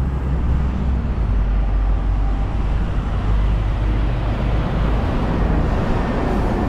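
Steady low rumble of road and engine noise from a moving taxi, heard from inside the cabin.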